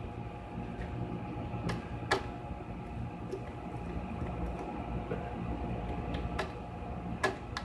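Steady electrical hum and buzz from a Tektronix 5103N oscilloscope running through a series light-bulb current limiter, with a few sharp clicks scattered through it, from its controls being handled.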